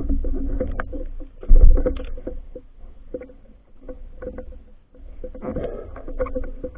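Muffled underwater water movement from a diver swimming, with scattered clicks and knocks from handling the camera and a faint steady hum beneath, all heard through an underwater phone camera. A loud low thump comes about a second and a half in.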